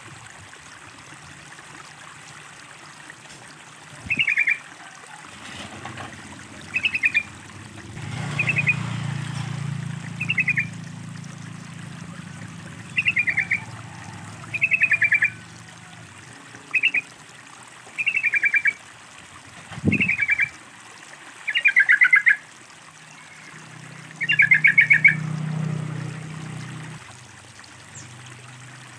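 Yellow-vented bulbul (trucukan) calling: short bursts of rapid chattering notes, repeated about every two seconds. Water trickles softly underneath.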